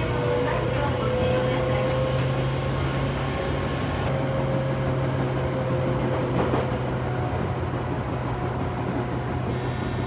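Tobu 9000 series electric train running, heard from inside the car: a steady low hum and rolling noise, with a faint motor whine that rises a little and then falls off.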